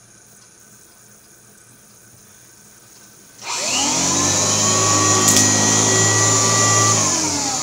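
1972 Kirby Classic 1CR vacuum cleaner switched on about halfway in. Its motor spins up with a rising whine and runs loud and steady, then near the end it is switched off and winds down, falling in pitch.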